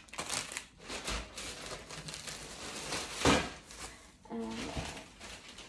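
Rummaging and handling of shopping items, with rustling and small clatters and one louder knock about three seconds in; a brief murmur of a voice follows shortly after.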